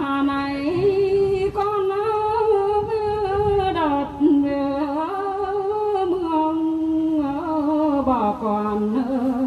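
A woman singing a Mường folk song solo into a microphone, unaccompanied, in long held notes that slide slowly up and down without a pause.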